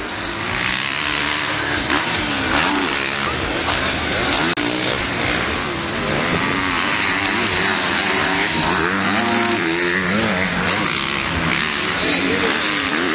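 Motocross bikes racing, their engines revving hard with the pitch repeatedly rising and falling as the riders roll off and open the throttle through the corners.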